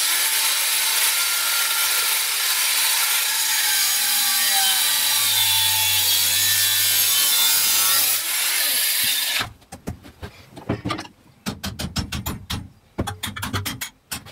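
Angle grinder with a thin cut-off disc cutting through a stainless steel tube, a loud, steady, harsh grinding hiss for about eight seconds that then winds down as the disc stops. After it, scattered clinks and knocks as the cut tube and the cut-off piece are handled and taken from the metal vise.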